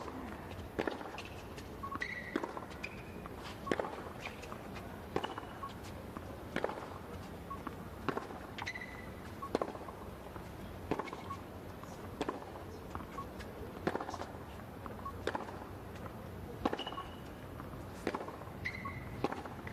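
Tennis rally on a hard court: the ball struck back and forth by racket strings about every one and a half seconds, with ball bounces and short high shoe squeaks between the hits.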